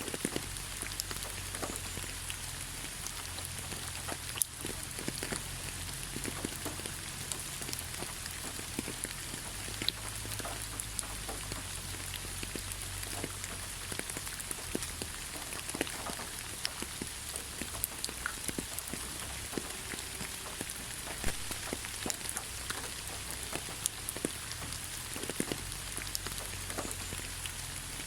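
Steady rain falling, with many individual drops ticking sharply on a surface over a continuous hiss and a low steady rumble underneath.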